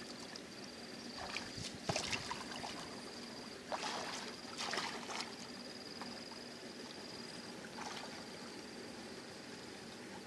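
Water splashing and sloshing in a few short bursts, about a second in, around four to five seconds in, and once more near eight seconds, over a steady high-pitched buzzing.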